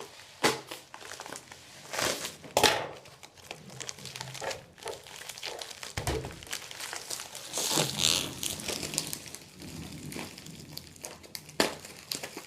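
Package wrapping crinkling and crackling in irregular sharp bursts as it is worked open by hand, with a longer rustling stretch about two-thirds of the way in.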